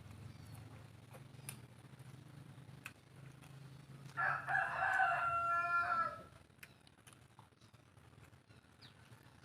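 A rooster crows once, a single call of about two seconds starting about four seconds in.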